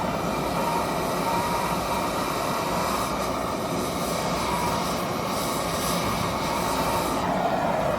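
Steady mechanical running noise, even throughout, with a faint whine near the middle.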